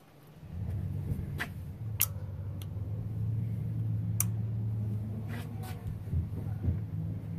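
A few sharp, separate metallic clicks as a valve follower (bucket tappet) is handled with a pick tool in the cylinder head of a Toyota 4.7 V8. A steady low hum of unknown source comes in about half a second in and carries on under them.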